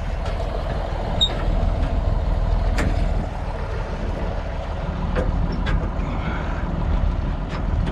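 A vehicle engine running steadily: a low, even rumble, with a few light clicks.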